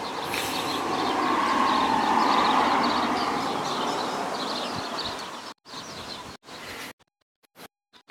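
Small birds chirping over the road noise of a passing vehicle, which swells up and fades away over a few seconds. In the last few seconds the sound cuts in and out in short gaps.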